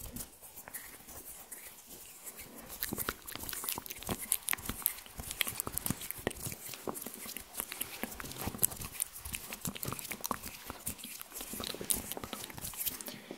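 Close-miked ASMR hand sounds: fingers rubbing, tapping and fluttering right at the microphone, making a rapid, irregular crackle of small clicks that grows busier after the first few seconds.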